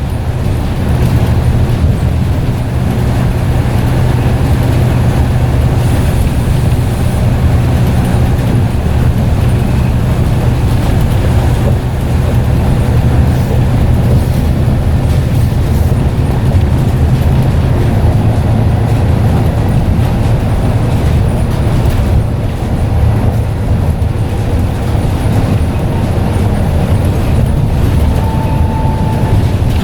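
Scania N94UD double-decker bus engine running steadily under way with a ZF automatic gearbox, a low, even drone. A brief faint high tone sounds near the end.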